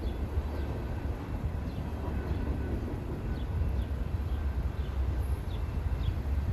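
Steady low rumble of a mixed freight train rolling across a grade crossing, with a few faint short chirps scattered through it.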